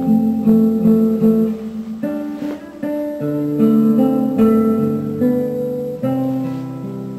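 Acoustic guitar music, a melody of plucked, ringing notes, played back through loudspeakers driven by a single-ended tube amplifier with 100TH/805 power tubes.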